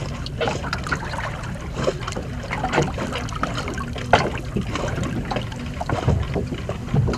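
Water lapping and slapping against the hull of a small fishing boat at anchor, with scattered knocks and clicks aboard and a low rumble of wind on the microphone.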